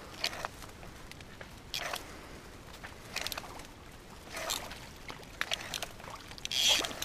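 A tilapia shot with a slingshot arrow splashing at the water's surface in short, irregular bursts, the loudest near the end.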